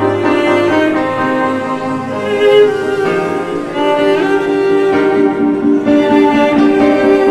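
Dance accompaniment music with a sustained melody of held notes, some sliding up in pitch, over a steady lower accompaniment.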